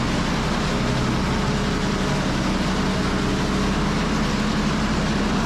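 Small bedding chopper running steadily as it chops straw for bedding: a constant low hum under an even rush of noise.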